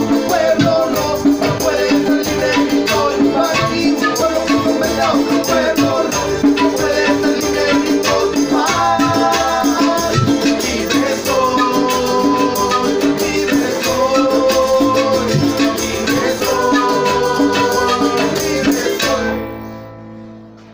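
Acoustic band playing Latin American folk music: strummed guitar and a hand drum keep a steady rhythm while panpipes play phrases of held notes. The music fades out and stops near the end.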